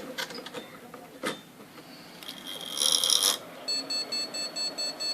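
Electronic beeping from the powered motherboard under repair: a short high tone, then from about three-quarters of the way in a fast, even train of short high-pitched beeps, about four a second.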